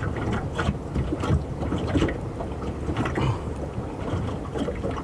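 Water slapping and lapping against the hull of a small moored fishing boat, with irregular short knocks and splashes, over wind rumbling on the microphone.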